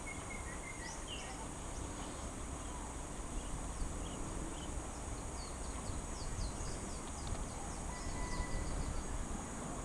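Outdoor nature ambience: a steady high-pitched insect buzz with many short, high chirps scattered through it, thickest in the middle, over a low steady rumble.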